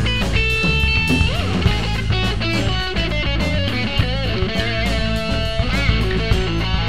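Rock song with electric guitar and drums, with no singing at this point.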